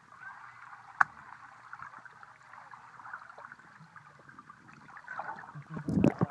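Swimming-pool water heard through a submerged camera: a muffled, crackly underwater hiss with bubbling and one sharp click about a second in. Near the end a loud splash and slosh as the camera breaks the surface.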